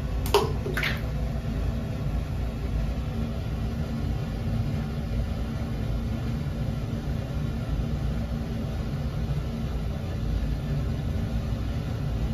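Water in a filled bathtub churning with a steady rushing, rumbling noise, with two sharp splashes about half a second apart near the start.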